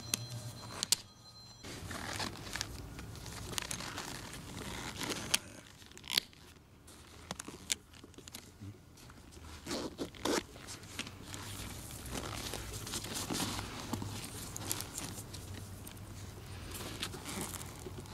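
Hands working the ankle strap of a Salomon cross-country skate boot: the plastic click buckle snaps, the strap tears open and presses shut, and the boot shell and liner rustle under handling, with many sharp clicks throughout.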